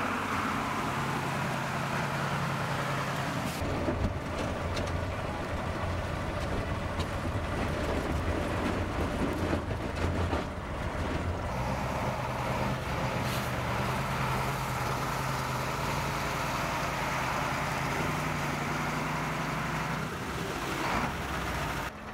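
KAMAZ truck's diesel engine running under load while it ploughs through water and slush over river ice, with the wash of water thrown up by its wheels. The engine note shifts a few times along the way.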